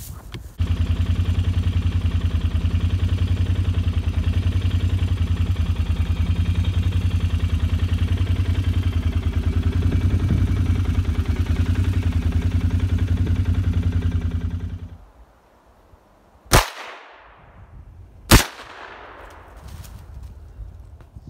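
A vehicle engine runs steadily with a fast pulsing beat while driving over snow, then cuts off. Near the end come two sharp gunshots about two seconds apart, each with a ringing echo.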